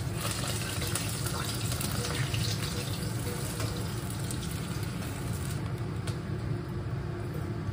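Hot oil sizzling in a wok as battered pieces finish their second fry to crisp and brown, over a steady low hum; the sizzle thins out about five and a half seconds in.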